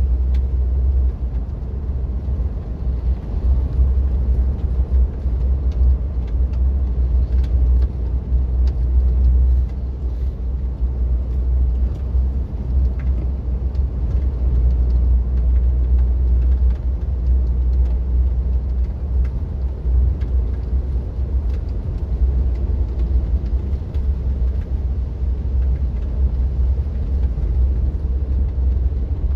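Steady low rumble of a car driving on the road, engine and tyre noise heard from inside the cabin.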